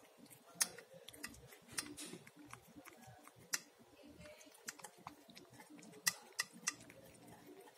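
Cat eating enoki mushrooms from a bowl: soft chewing and mouth sounds with a scatter of sharp clicks, three of them in quick succession about six seconds in.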